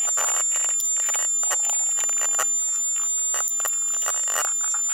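Sped-up sound of a paintbrush being worked over a wooden door: rapid, irregular scratchy strokes over a steady high-pitched whine.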